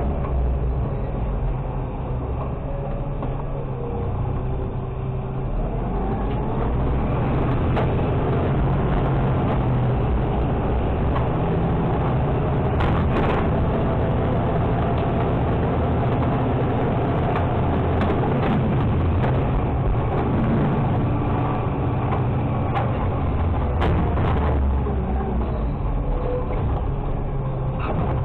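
Automated side-loader garbage truck's engine and hydraulics running steadily, louder from about six seconds in. A few sharp knocks and clatters sound as trash is dumped into the hopper.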